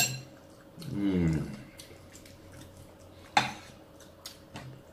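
Metal spoons clinking and scraping on plates during a meal: a few sharp clinks, the loudest about three and a half seconds in. A brief murmured voice about a second in.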